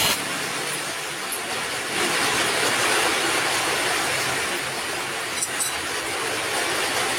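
Heavy rain falling as a steady, even hiss, with a few faint clicks about five and a half seconds in.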